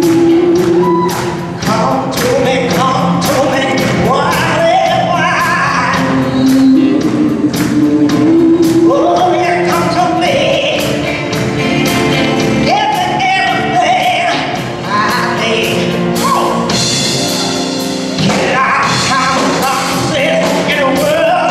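A live band playing a song, with a woman singing lead into a handheld microphone and backing vocals, over electric guitar, keyboard and a drum kit keeping a steady beat.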